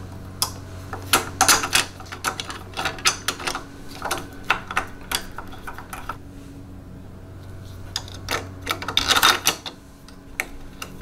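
Quick clicks and taps of screws and a thin metal driver tool knocking and scraping against a plastic touchscreen mount and the metal frame as the screws are fed into their holes and turned, in two bursts with a short pause between.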